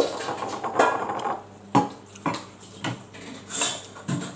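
Plates and tableware clinking and knocking on a dining table, about half a dozen separate knocks spread across a few seconds.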